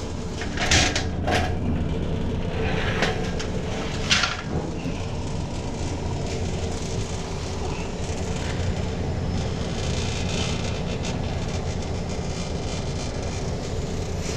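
Steady hum of running refrigeration equipment, with a few sharp knocks from handling the unit in the first four seconds.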